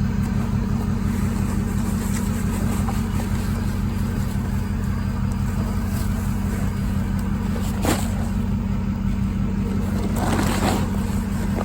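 Truck engine idling steadily, with a sharp click about eight seconds in and a short rustling burst near the end.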